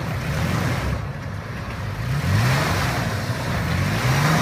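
Toyota 4Runner's engine revving in two rising surges while the stuck SUV spins its wheels in deep mud.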